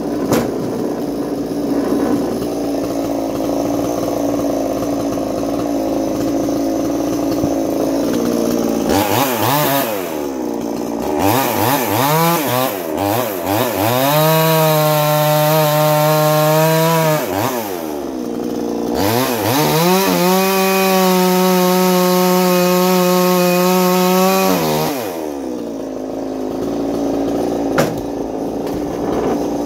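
Chinese 45cc ported two-stroke chainsaw idling, then revved up twice, about nine and nineteen seconds in, and held at high, steady revs for several seconds each time before dropping back to idle.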